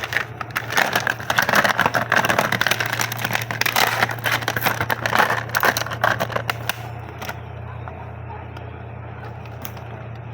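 Items and packaging being handled, with dense clicking, tapping and crinkling of plastic for about seven seconds, then mostly stopping. A steady low hum runs underneath.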